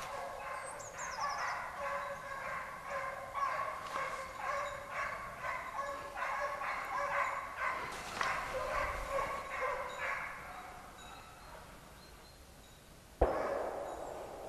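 A pack of basset griffon vendéen hounds giving tongue: several voices overlap in short, repeated bays, the pack baying on a scent. The baying fades out after about ten seconds, and a sudden loud knock comes near the end.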